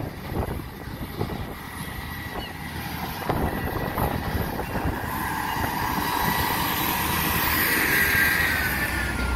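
Transport for Wales Class 158 diesel multiple unit pulling out of the station and rolling over the level crossing, its engine and wheel rumble growing louder as it approaches and passes. A high whine runs throughout and falls in pitch near the end as the train goes by.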